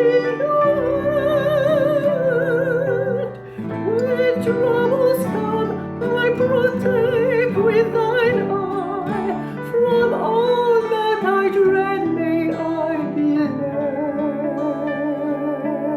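Music: a slow melody with wide vibrato, in the manner of a classical solo, over a plucked-string accompaniment.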